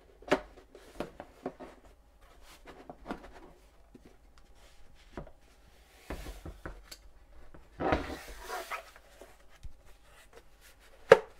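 Plastic tube and housing of a Ryobi OBL1820S cordless blower knocking, rubbing and clicking as the tube is pushed onto the blower's outlet and handled, with a loud sharp click near the end.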